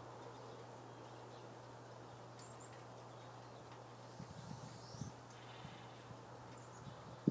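Quiet room tone with a steady low hum and a few faint soft knocks, and one brief high chirp about two and a half seconds in.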